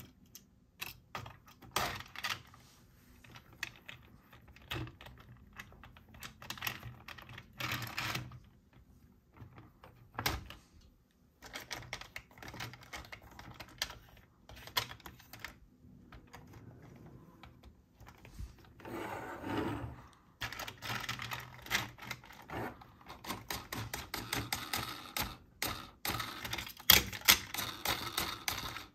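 Hard plastic toy parts clicking, tapping and knocking as a plastic toy garage playset and toy car are handled: irregular clicks, with a brief scraping rub about two-thirds through and a denser run of clicks near the end.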